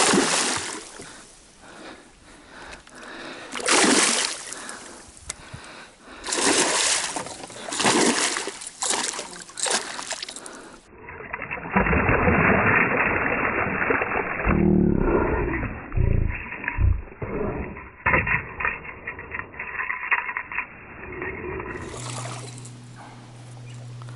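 Water splashing in repeated loud bursts, then a stretch of muffled rushing and sloshing with low thumps. Near the end a steady low hum sets in.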